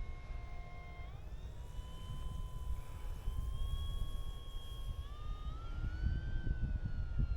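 Electric motor and propeller of an E-Flite T-28 Trojan RC plane whining in flight. The pitch steps up about a second in, rises again later and sinks near the end as the throttle changes and the plane passes. A low rumble lies under it.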